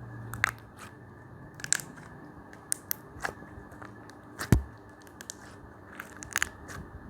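Homemade slime being squeezed and poked by hand, giving irregular sticky clicks and crackles as air pockets pop, with a louder snap about four and a half seconds in.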